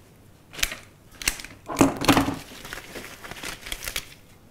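Cut flower stems and leafy greenery rustling and crackling in the hands as a bouquet is bound, in irregular handling noises, loudest about two seconds in.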